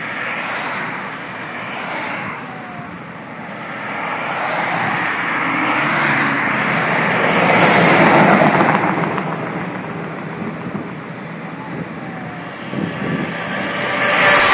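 Highway traffic passing close by: tyre and engine rush from a car and then tractor-trailers going past, swelling to its loudest as a semi-trailer passes about eight seconds in and again as another semi truck passes near the end.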